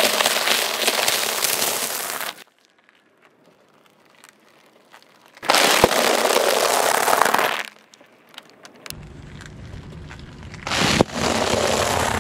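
A car tyre rolls over and crushes puffed-rice bars with a crackling crunch lasting about two seconds. After a pause it crushes a plastic bag of dried wide egg noodles, giving a crunching burst about five and a half seconds in. A second crunch follows near the end, each with a sharp crack, the last over a low rumble.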